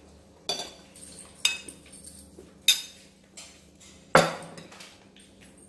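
Metal spoon clinking and scraping against a plate of rice: a handful of separate sharp clinks, the loudest about four seconds in.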